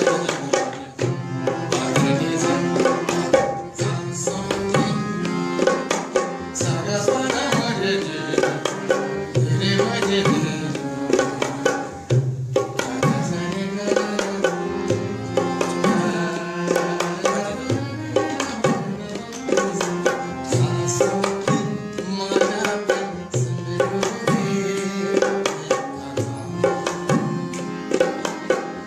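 Harmonium playing a melody of sustained, shifting notes, accompanied by tabla drumming with frequent sharp strokes, in a Hindustani classical style.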